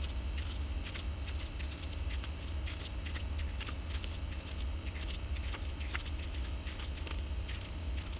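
Pages of a glossy photobook being turned and handled: a quick run of light paper flicks and rustles over a steady low hum.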